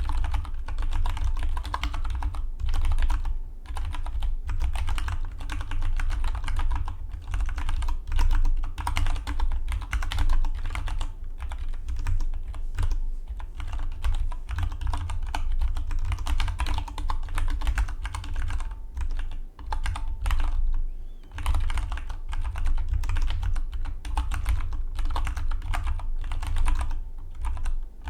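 Fast, continuous typing on a Dygma Defy split mechanical keyboard: a rapid stream of keystrokes with a few short pauses, the longest about 20 seconds in.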